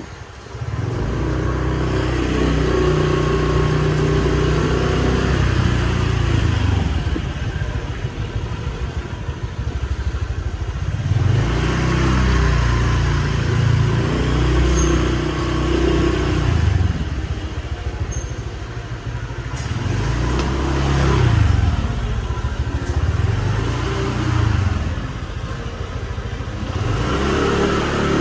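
Small motorbike engine running and revving up and down in long swells as it rides along, with a light noise of air and road over it.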